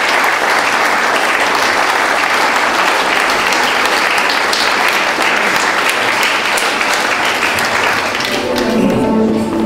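Wedding guests applauding, a dense sustained clapping from a seated crowd. Near the end the applause gives way to instrumental music coming in.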